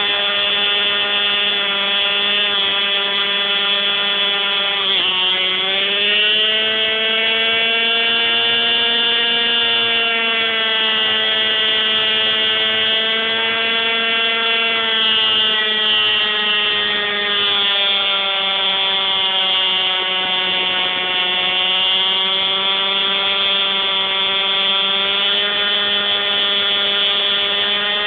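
Hirobo Shuttle radio-controlled helicopter's small glow (nitro) engine running in flight, a steady buzzing whine. Its pitch dips sharply about five seconds in, then drifts gently up and down with the throttle.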